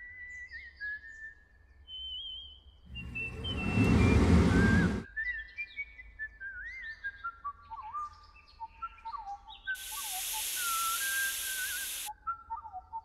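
Bird-like whistled notes, short gliding and trilling tones that step down in pitch in little runs, with a loud whoosh about three seconds in and a bright hissing swish around ten seconds in.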